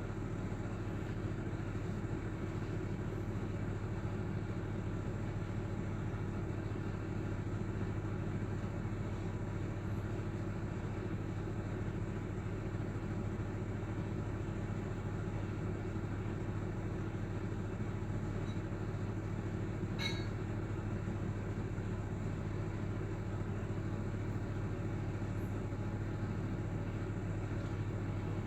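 Oven running with its convection fan on: a steady hum and whir with no change, and a single brief click about two-thirds of the way through.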